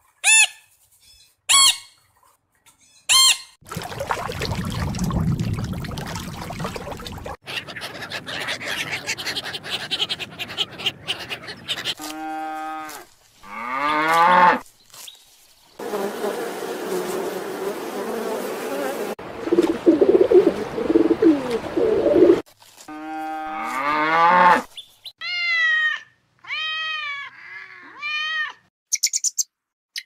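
A run of different animal sounds cut one after another. A blue-and-gold macaw squawks several times at the start, honeybees buzz at a hive entrance in the middle, and other animal calls with pitch glides come in between and near the end.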